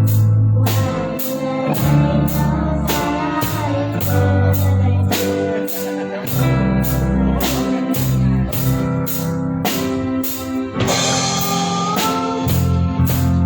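A live band playing a song with drum kit, bass and guitar and a singing voice, over a steady beat of about two drum hits a second.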